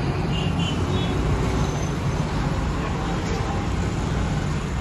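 Mahindra Bolero pickup's diesel engine idling, a steady low rumble.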